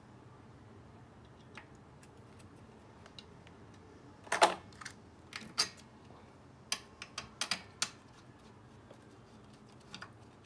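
Scattered small clicks and knocks of hand work on a scooter's engine and fuel hose, with a louder clatter about four and a half seconds in and a quick run of clicks near the middle.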